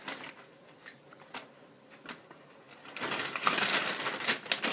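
Jelly beans clicking and rustling as a hand rummages through them in a bag: a few scattered clicks at first, then a busier spell of rattling from about three seconds in.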